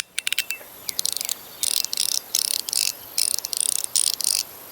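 Cyber EDC Phase mechanical fidget, a PEI slider with detent tracks, being worked back and forth: a few single clicks, then repeated short runs of rapid clicking as it travels over the detents.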